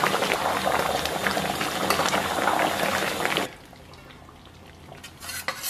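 Thick braising sauce bubbling and crackling steadily around pork belly in an uncovered pot over low heat, reducing. It cuts off abruptly about three and a half seconds in, followed by a faint clink or two of metal near the end.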